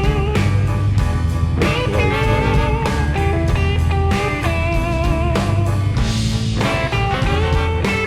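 Background blues-rock music: electric guitar with bent, wavering notes over bass and a steady beat.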